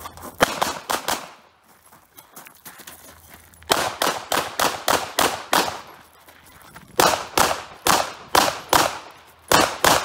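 Semi-automatic pistol fired in rapid strings during a timed practical-shooting stage, about four shots a second. The strings come in three main bursts, the shooter pausing between them, with two last shots near the end. Each shot rings on briefly in the open air.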